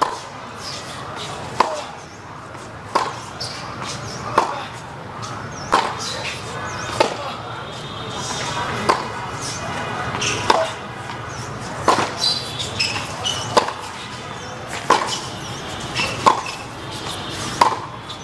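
Tennis balls struck back and forth by rackets in a long baseline rally: sharp pops at a steady pace, about one every second and a half.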